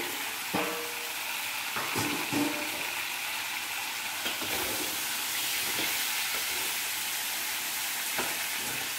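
Crab pieces dusted in corn flour sizzling steadily as they fry in a hot steel wok. A metal spatula knocks and scrapes against the wok a few times as they are stirred.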